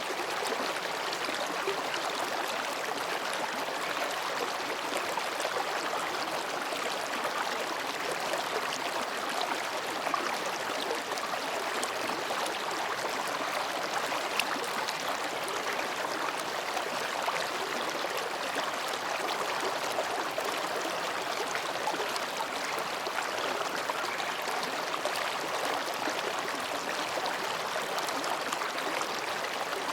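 Mountain stream babbling steadily over and between rocks, a constant even rush of water.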